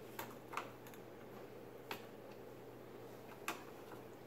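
Four light clicks of a small screwdriver working against the plastic snap-in hold-down tabs of a cooktop's control board, spread out over a few seconds.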